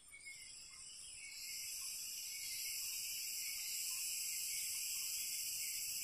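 Insects buzzing in a high, steady drone that swells in over the first second or two and then holds level.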